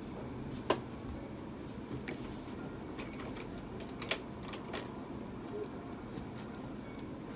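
Scattered light clicks and clinks of small bottles and instruments being handled in a tray, about half a dozen spread irregularly, the sharpest under a second in. They sit over a steady hum of room equipment.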